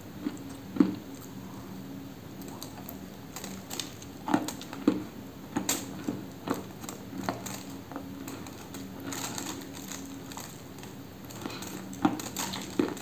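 Close-mic biting and chewing of a dry, crunchy cookie spread with cream: irregular sharp crunches, with louder bites about a second in, around four to six seconds in, and near the end.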